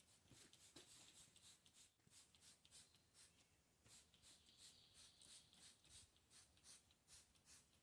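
Near silence, with faint light clicks and rustling throughout and a brief faint hiss about four seconds in.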